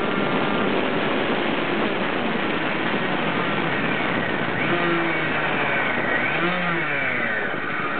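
Tuned 70cc Minarelli Stage6 two-stroke engine in a Kreidler moped, with its FTT7014S expansion-chamber exhaust, running hard at speed under heavy wind rush on the onboard microphone. In the second half the engine pitch swings up and down, with falling sweeps toward the end.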